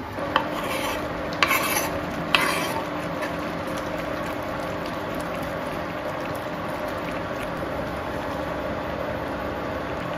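Spaghetti simmering in water in a frying pan, a steady bubbling hiss with a low steady hum under it, while metal tongs stir cheese pieces in. There are three sharp metal clacks of the tongs in the first few seconds.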